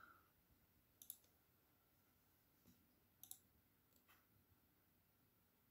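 Faint computer mouse button clicks: a few short, sharp clicks about one second, three and a quarter and four seconds in, over near-silent room tone.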